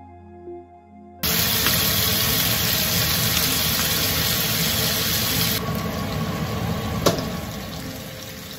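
Soft background music for about the first second, then a sudden cut to chicken thighs and chicken livers frying in oil in a nonstick pan: a loud, steady sizzle. One sharp click near the end.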